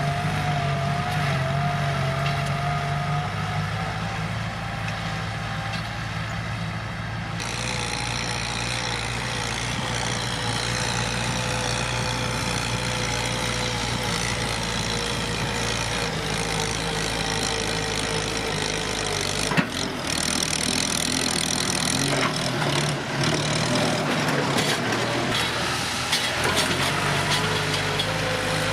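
Kubota M7040 tractor's diesel engine running steadily under work, with a brighter, higher-pitched edge coming in abruptly about a quarter of the way in. A single sharp knock sounds about two-thirds of the way through.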